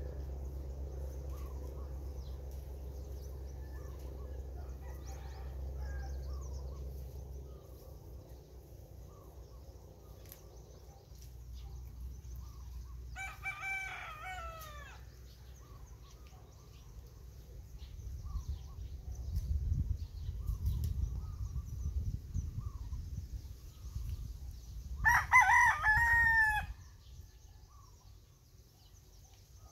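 Rooster crowing twice, about twelve seconds apart, each crow lasting a second and a half to two seconds. A low steady hum stops about seven seconds in, and low rumbling comes through in the second half.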